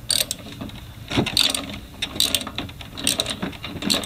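Socket ratchet clicking in short runs, about once a second, as it is worked back and forth to turn over a Honda lawn mower engine's crankshaft. The engine is very tight to turn, having been seized from running without oil.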